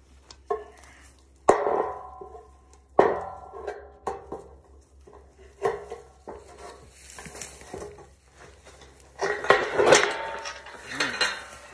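Steel gear being handled, clanking: sharp metal knocks with a short ring, three of them spaced a second or two apart, then a busier run of knocks and rattles near the end.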